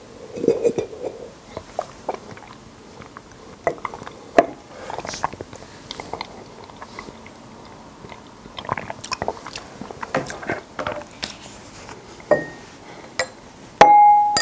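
Gulping and swallowing a drinkable konjac jelly from a glass, followed by wet mouth and chewing clicks. Just before the end a glass is struck and rings with a clear, sustained tone.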